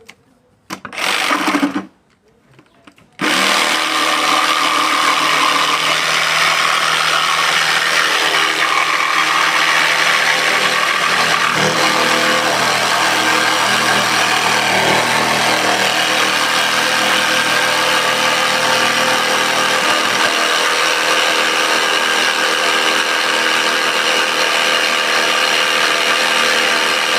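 Total 20-volt cordless jigsaw cutting a curve in cedar wood. A short burst about a second in, then the saw runs steadily from about three seconds in.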